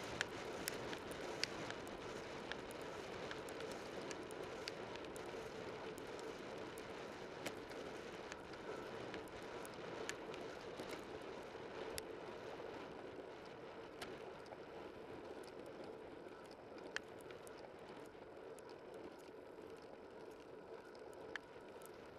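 A bicycle on the move heard through a bike-mounted camera: a steady rushing of wind and tyres on the road, with frequent small sharp clicks and ticks. It grows gradually quieter.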